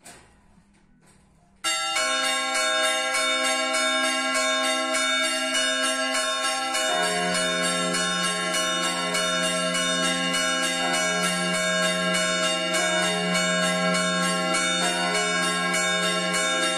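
Church bells start ringing abruptly about two seconds in: the fixed C4 and E4 bells are chimed by hammers in fast repeated strokes. About seven seconds in, a deeper tone joins, the big F3 bell swung in full peal.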